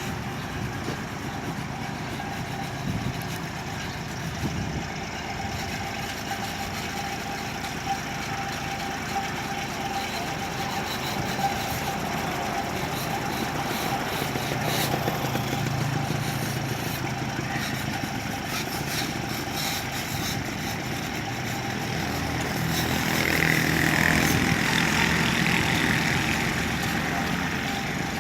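Small excavator's engine running steadily while it works, with a few short knocks and a louder stretch near the end.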